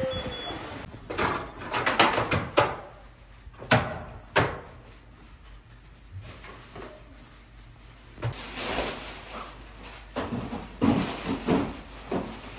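Knocks, clacks and scraping of household goods being moved, with several sharp knocks in the first half and two spells of scraping and rustling later.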